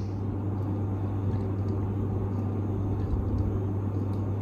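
Steady low mechanical hum of running machinery, like an engine idling, over even background noise.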